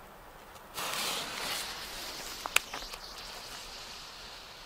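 Fuse of an old Superböller 1 firecracker catching about a second in and hissing, growing fainter as it burns, with a couple of small sharp cracks.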